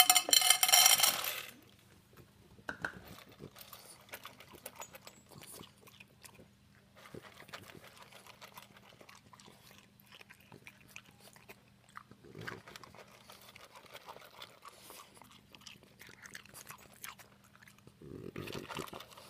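Dry kibble poured from a scoop into a stainless steel bowl, rattling and ringing the metal for about a second and a half. Then a French bulldog crunching and chewing the kibble, with scattered small clicks.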